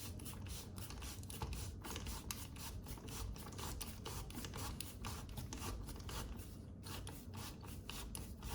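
Faint scraping and small irregular clicks of a screw being worked by hand into a wall fixing, several clicks a second, with no power-tool motor running.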